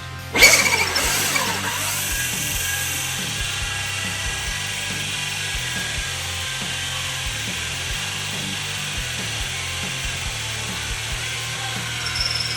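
Power drill turning a hole saw in reverse at low speed, grinding steadily through wooden shelving. Running the saw backwards makes the teeth scrape instead of grab, so it cuts a smooth hole without ripping the material. It starts abruptly about half a second in.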